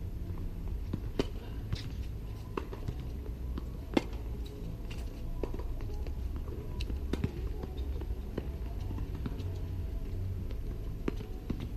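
Tennis ball struck back and forth in a rally on a hard court: sharp pops of racket hits and ball bounces every second or so, the loudest about four seconds in, over a steady low rumble.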